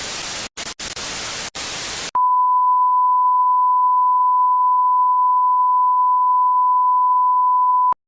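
Television broadcast breaking up: hissing static with a few split-second dropouts, then a sudden switch to a loud, steady high tone held for about six seconds that cuts off abruptly.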